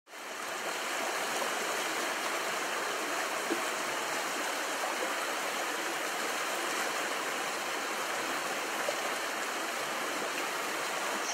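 A fast, shallow stream rushing over rocks in small rapids: a steady, even rush of water that comes in quickly at the start.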